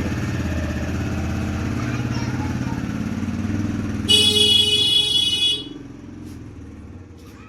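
A motor vehicle's engine running. A high-pitched horn honks once about four seconds in, lasting about a second and a half. Then the engine sound drops to a much lower level.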